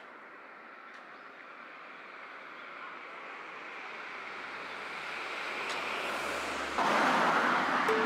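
Outdoor ambient noise, a steady rush with no voices that slowly grows louder and jumps louder again about a second before the end.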